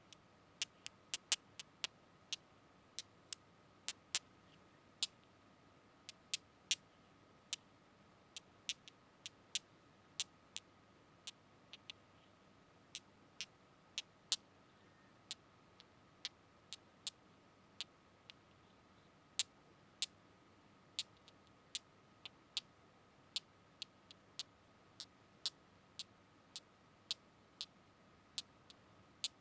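ASMR tapping: sharp, separate taps at an uneven pace, about one or two a second, over a faint steady high hum.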